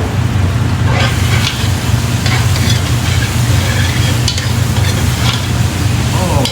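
Onions and freshly added diced tomato sizzling in olive oil in a pan while a spoon stirs and scrapes through them, with irregular scraping strokes over a steady low hum.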